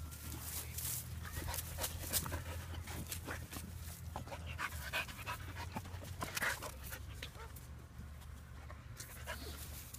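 A dog panting and sniffing hard, with many short rustles and clicks as it noses through dry grass and rocks.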